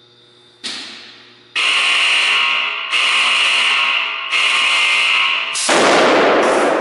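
Loud electrical arcing from a high-current test rig: a sharp crack, then a harsh buzz in four long bursts of about a second each before it cuts off. Current is being forced through the clamped object until it melts.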